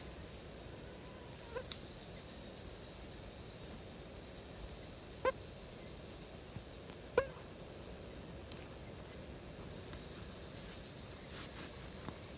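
Tropical forest ambience: a faint, steady high drone with three short, pitched animal calls, spaced a few seconds apart.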